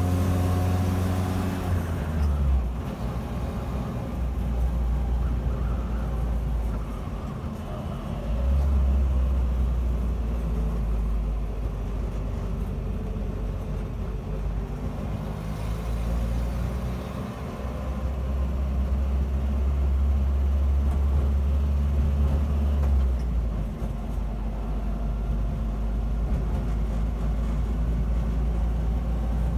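Land Rover Series 3's 2.25-litre petrol four-cylinder engine and exhaust, noisy inside the cab while driving. The low drone shifts in pitch and level several times as the revs change. The exhaust is rusted through with holes and blowing at the manifold.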